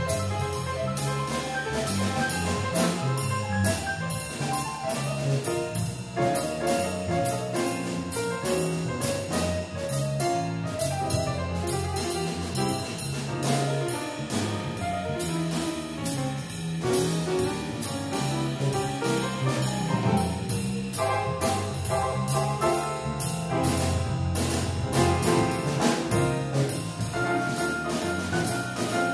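Live jazz: a grand piano playing chords and runs over an electric bass line, with drums keeping a steady beat.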